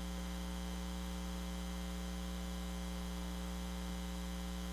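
Steady low electrical mains hum in the recording, a constant buzz with evenly spaced overtones and nothing else standing out.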